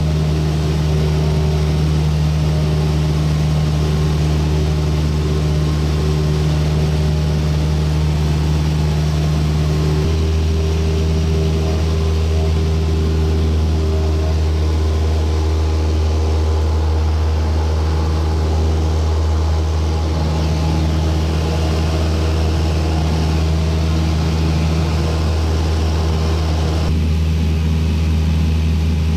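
Cessna light aircraft's piston engine and propeller droning steadily in cruise flight, heard inside the cabin with airflow noise. The drone's tone shifts abruptly a couple of times.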